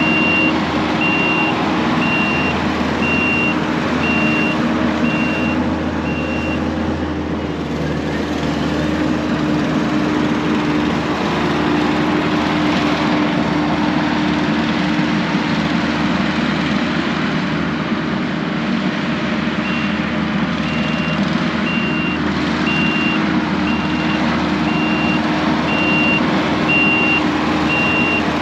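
Diesel earthmoving machine running under steady load while it works dirt, its reversing alarm beeping about once a second. The beeping stops for a long stretch in the middle while the machine works forward, then starts again near the end.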